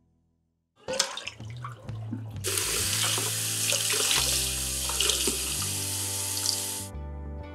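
Kitchen tap running hard onto bracken shoots held in the hands and splashing into a pan of water in a stainless steel sink, the fern shoots being rinsed after boiling. It starts after a few splashes and knocks about a second in and stops abruptly near the end, with soft background music underneath.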